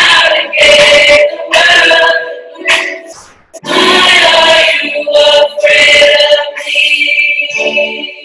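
A choir singing a song in several sustained phrases, with short breaks between them.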